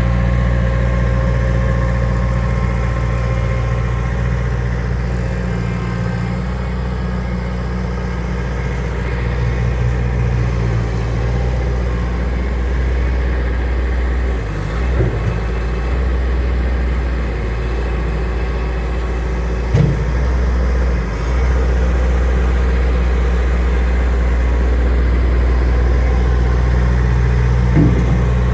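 Skid steer loader's engine running steadily, its speed swelling slightly at times, with a few short metallic clanks: one about halfway through, one around twenty seconds in and one near the end.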